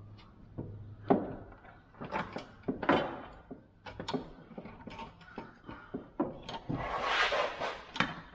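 Irregular small clicks, knocks and scrapes of metal parts being handled: an air-conditioning refrigerant line and receiver-drier being worked into place at a car's condenser, with a longer rustling scrape about seven seconds in.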